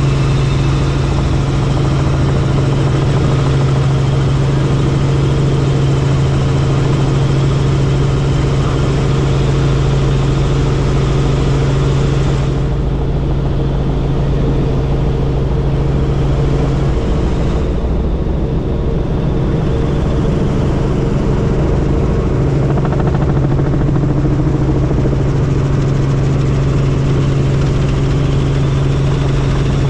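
Helicopter running steadily: a loud, constant drone of rotor and engine with a strong low hum underneath, the upper hiss thinning for a few seconds about halfway through.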